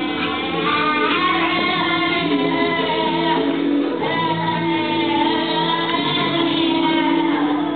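A boy singing into a handheld microphone over instrumental backing music.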